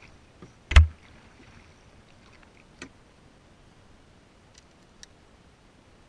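A canoe paddle knocks once, sharply, against the canoe's hull about a second in as it is set down. A few faint clicks and taps follow as the spinning rod and reel are handled.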